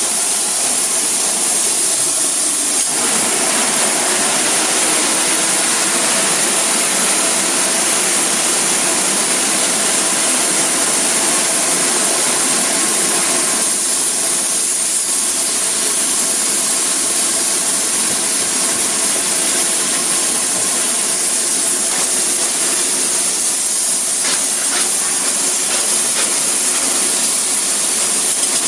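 Spray foam insulation gun hissing steadily as foam is sprayed, over a steady machine hum.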